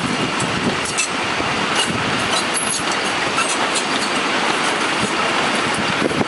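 Loaded sugar cane bins of a narrow-gauge cane train rolling past in a steady rumble of steel wheels on rail. Irregular clicks come from the wheels over the track, with a few brief, faint wheel squeals.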